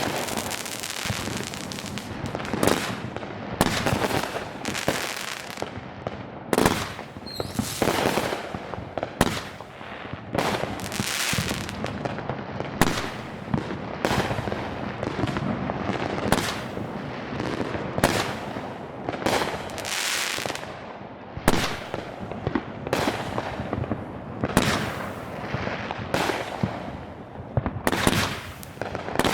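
Consumer fireworks of 200 grams and under going off in a rapid string: sharp booming bursts about once a second, with crackling between them.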